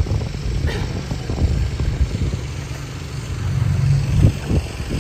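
Small engine running steadily at low speed, with a fast chugging beat.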